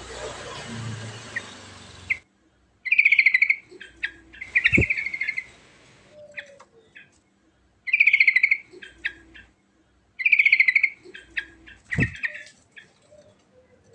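Yellow-vented bulbul singing: short, fast, bubbling trilled phrases repeated about five times, a couple of seconds apart, with brief calls in between. A steady hiss runs under the start and cuts off about two seconds in.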